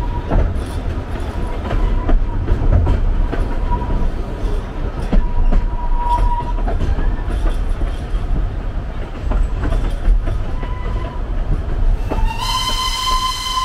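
Narrow-gauge forest train running: a steady low rumble with wheels clicking over the rail joints and an on-and-off high wheel squeal. About twelve seconds in, the locomotive's whistle starts and holds.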